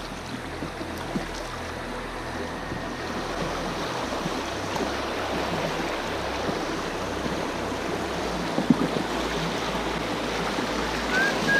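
River water rushing over a shallow rocky riffle around a drifting inflatable boat, a steady rushing noise. A single sharp knock comes about two-thirds of the way through, and a short high whistle near the end.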